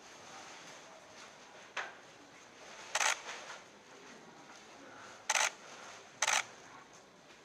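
Camera shutters firing in short clicks as the fighters face off: a faint one nearly two seconds in, then three loud ones about three, five and a half, and six seconds in.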